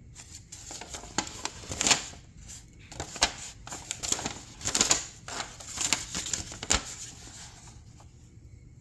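Paper instruction sheet being unfolded and handled, rustling and crinkling in irregular bursts with a few sharp crackles, settling down about seven seconds in.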